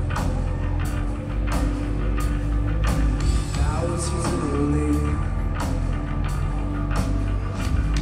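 A rock band playing live, with drums keeping a steady beat over sustained low notes, recorded from the audience.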